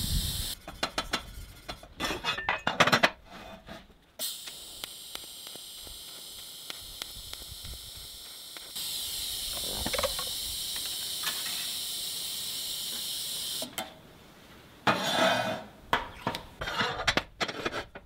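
TIG welding arc hissing steadily for about nine seconds while a joint on steel square tube is welded, growing louder partway through the run. Before and after it come clinks and knocks of metal being handled on the steel welding table.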